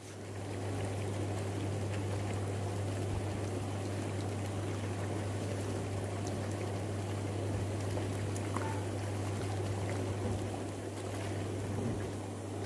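Hot tub jets running, churning and bubbling the water, over a steady low hum from the pump.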